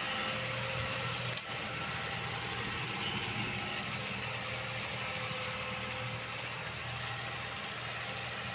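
John Deere tractor diesel engine idling steadily.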